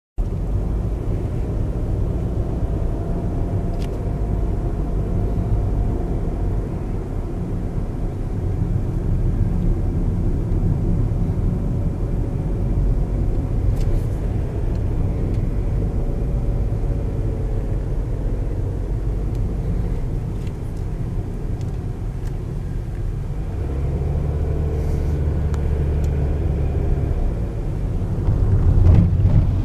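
Steady low rumble of a car's engine and tyres on the road, heard from inside the cabin while driving. A deeper, louder hum comes in about three-quarters of the way through, and there is a brief bump near the end.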